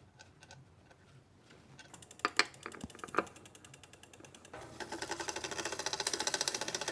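Bicycle drivetrain turned by hand on the stand during derailleur adjustment: a few separate clicks, then from about two thirds in a rapid, even ticking of the chain and freewheeling rear hub.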